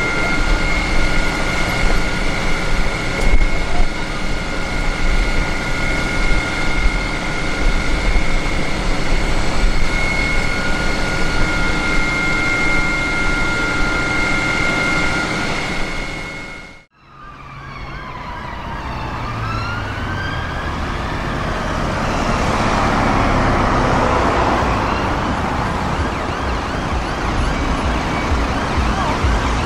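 For the first half, a fire engine with its blue lights on has its engine running under a steady, unchanging high two-note whine. After an abrupt cut, an ambulance siren wails, rising and falling, as it approaches through traffic.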